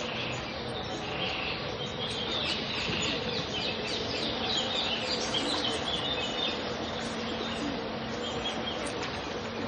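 Pond ambience: several birds chirping and calling over a steady background, busiest in the middle stretch.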